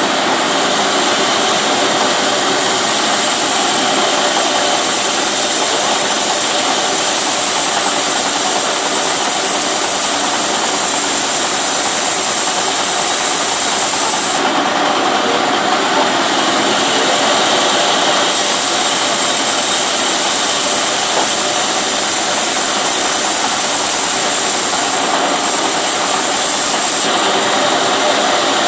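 Benso TB 28 small two-stroke petrol engine running fast and steadily. Its note drops back briefly about halfway through and twice near the end.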